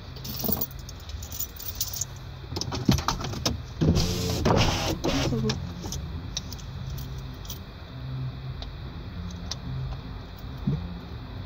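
Clicks and rattles of things being handled inside a car, with a louder rustle about four seconds in, over a steady low hum.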